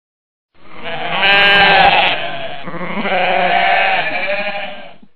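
Goat bleating: two long, drawn-out bleats, the first starting about half a second in and the second following at once, about two and a half seconds in.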